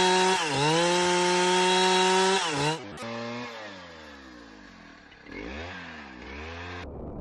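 Two-stroke chainsaw running at high revs, its pitch dropping sharply and settling lower as the chain bogs into the wood, then dipping again. After an abrupt cut, a quieter saw note falls away and briefly revs up and down.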